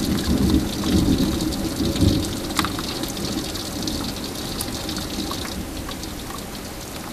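Steady heavy rain with scattered sharp drop ticks, under the low rumble of thunder that fades away over the first two or three seconds.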